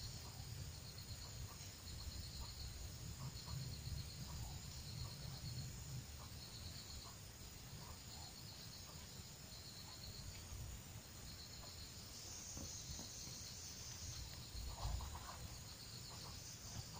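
Insects trilling in short repeated chirps, high-pitched and faint, restarting every second or so, over a steady low rumble.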